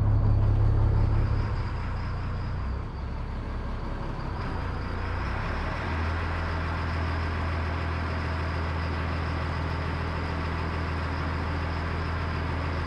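Diesel engine of a 46-foot crab workboat, with straight exhaust, running at low speed under way. It is a steady low hum that eases back about a second and a half in and firms up again around six seconds in.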